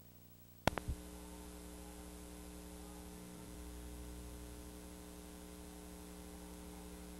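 VHS tape playback starting: two sharp clicks less than a second in, then a faint steady electrical mains hum with a buzz of overtones, with no program sound yet.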